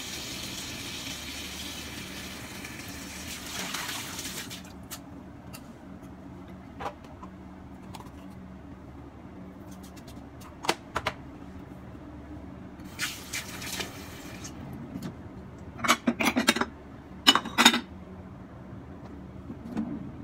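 Kitchen tap running into a stainless-steel sink, turned off about four and a half seconds in. Then scattered clinks and knocks of containers and dishes being handled, with a brief rattle in the middle and the loudest clatter near the end.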